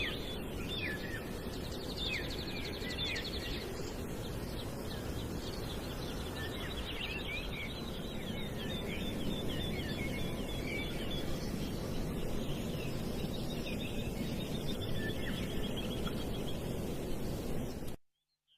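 Small birds chirping, with a rapid trill about two seconds in, over a steady background rush. Everything cuts off suddenly near the end.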